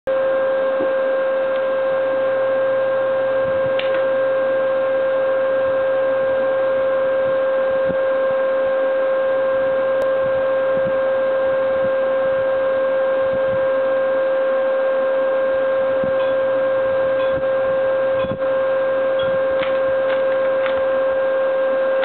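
A loud, steady electrical drone: one constant tone with two fainter higher tones above it, over a hiss. Faint clicks of the Rubik's Cube's layers being turned come through near the end.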